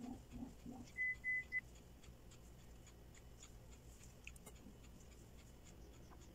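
Three short high beeps about a second in. Then faint light crackling and rustling as fine dry kunafeh dough strands are pulled apart and fluffed by gloved hands.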